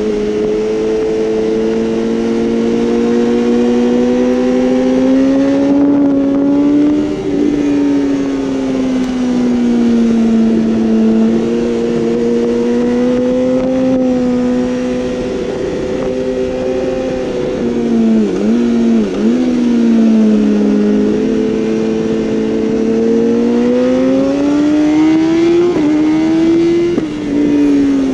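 2012 BMW S1000RR's inline-four engine pulling hard at speed, its pitch swelling and easing with the throttle, under a steady hiss of wind. About two-thirds through there are a couple of quick dips in pitch, and near the end the note climbs and then drops off sharply.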